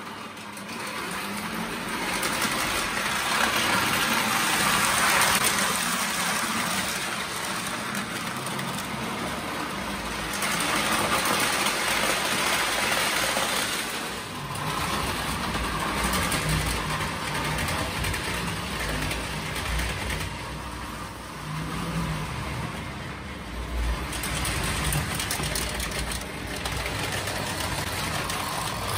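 Lionel O gauge model train running on three-rail track: a steady electric-motor whir and wheel noise, with a lower rumble joining about ten seconds in.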